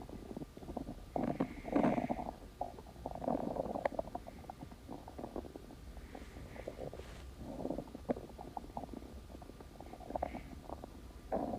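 Stomach growling: an irregular run of gurgles and rumbles, swelling louder every few seconds.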